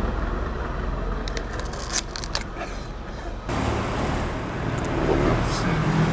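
Steady low background rumble and hiss, with a few short clicks between about one and two and a half seconds in. The background changes abruptly about three and a half seconds in.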